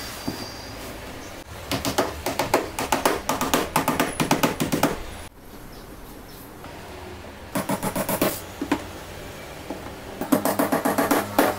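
A claw hammer tapping small nails into a wooden frame in quick runs of about five blows a second, several runs with pauses between, over background music.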